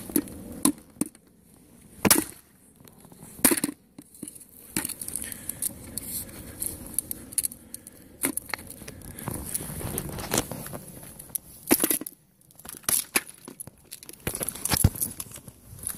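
A burnt plastic motorcycle helmet being handled and pulled apart on paving stones: several sharp knocks and clatters of the hard shell, with crackling and tearing as its rubber edge trim is pulled off.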